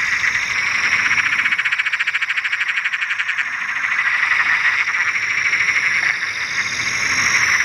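A dense chorus of calling frogs, many voices overlapping in a fast, steady pulsing trill.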